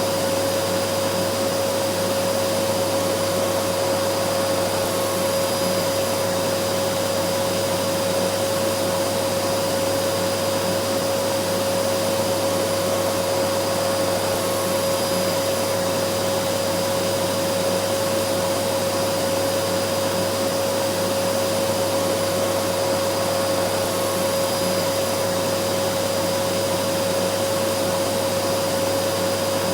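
Vacuum cleaner running steadily: an even airy rush with a constant motor whine, no change in pitch or level.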